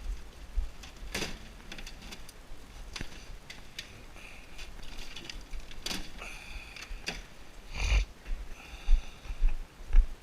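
Scattered knocks and clatters from objects being handled and moved, with a few short squeaks in the middle and later part.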